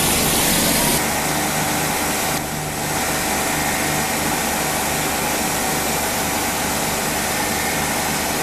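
CNC lathe cutting under automatic program, its spindle turning at about 1500 rpm while a WNMG insert turns the taper under flood coolant: a steady machine hum with a spray-like hiss. The hiss drops about a second in, and there is a brief dip in level near three seconds.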